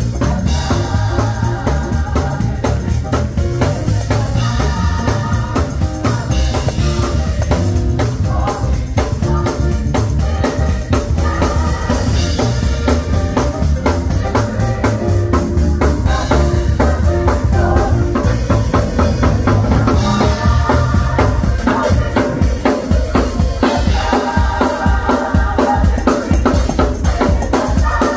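Gospel choir singing in phrases over a live band, with a steady drum kit beat and organ.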